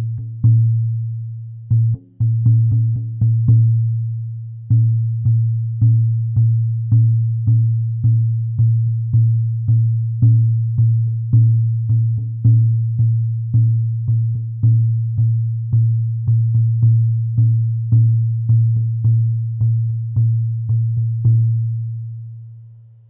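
Horse-skin shamanic frame drum struck steadily with a soft beater, about two beats a second, each beat a deep ringing boom. There are short pauses near the start, and the last beat is left to ring out and fade near the end.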